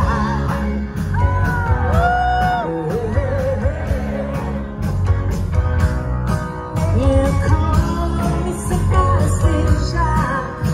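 Live pop-rock band playing: a woman singing lead, with a long held, wavering note about two seconds in, over electric guitars, keyboards, bass and a steady drum beat.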